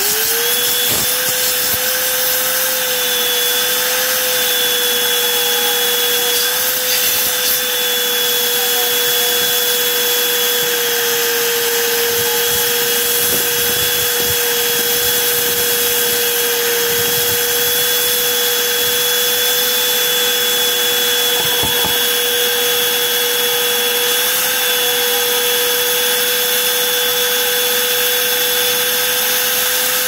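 Hoover Whole House Rewind upright vacuum cleaner switching on, its motor whine climbing to pitch in the first moment, then running steadily while its crevice tool sucks up a pile of dust and debris from the carpet.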